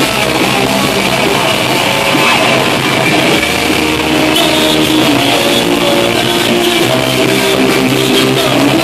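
Rock band playing live at full volume: electric guitars and a drum kit.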